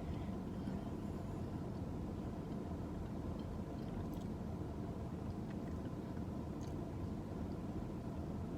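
Steady low engine-like rumble and hum, with a few faint scattered clicks of someone chewing a crunchy fried chicken nugget.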